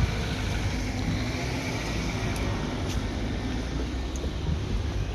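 Steady low rumble of city road traffic, with no distinct vehicle standing out.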